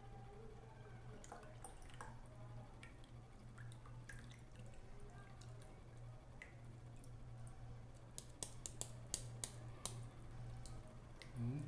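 Grape drink with pulp pouring faintly from an aluminium can into a glass, then dripping from the upturned can, with scattered small ticks and a quick run of sharper ticks near the end. A steady low hum runs underneath.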